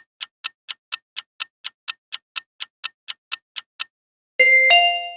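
Clock-ticking countdown sound effect, about four sharp ticks a second, for the 5-second answer time. The ticking stops just under four seconds in, and a bright chime rings out and fades, signalling that time is up.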